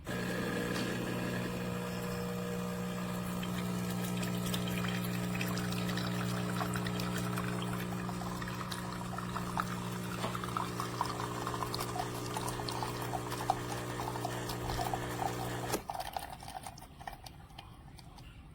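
De'Longhi La Specialista Arte Evo espresso machine pulling a shot: its pump hums steadily while espresso pours into the mug. Near the end the pump cuts off suddenly, leaving only the last drips.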